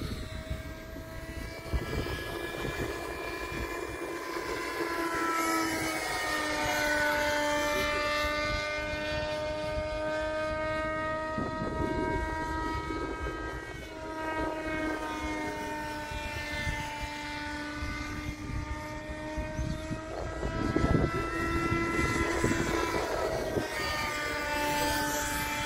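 Brushless electric motor and 16-inch three-blade propeller of a large-scale RC ultralight model in flight, giving a steady pitched drone. The drone swells and dips a little in pitch twice as the model passes by, with a low rumble of wind on the microphone underneath.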